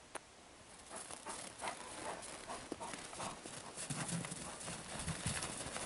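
Footsteps crunching through snow in an irregular run, starting about a second in, with a few low thuds near the end.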